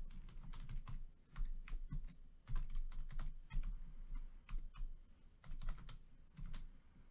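Typing on a computer keyboard: irregular runs of keystroke clicks, several a second.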